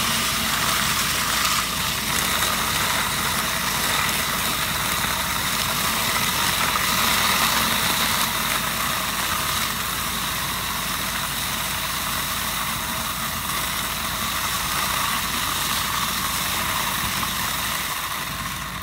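Hasatsan H230 engine-driven vacuum hazelnut harvester running steadily, its suction hose drawing hazelnuts and leaves up off the ground. The level eases slightly near the end.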